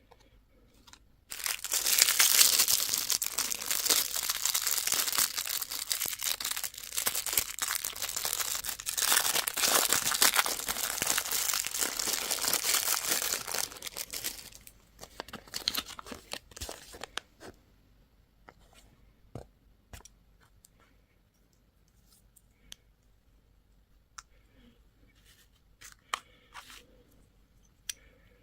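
Candy wrapper being torn open and crinkled: a dense, continuous crackle for about twelve seconds, then scattered small crinkles and clicks.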